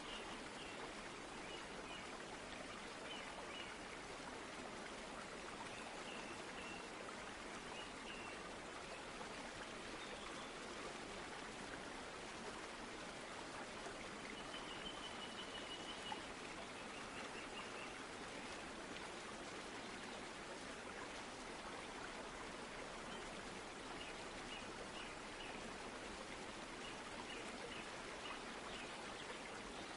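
Faint nature ambience: a steady hiss of water with short series of high bird chirps every few seconds, and a longer trill about fifteen seconds in.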